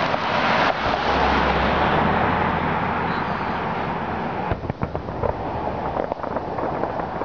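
Aerial fireworks display: a dense, loud rumble of shell bursts, then rapid crackling pops from about four and a half seconds in.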